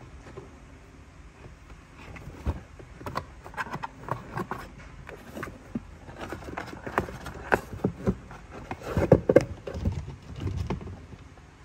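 Cat clawing and biting at a cardboard box: irregular scratches, taps and knocks on the cardboard, with a cluster of louder knocks about nine seconds in.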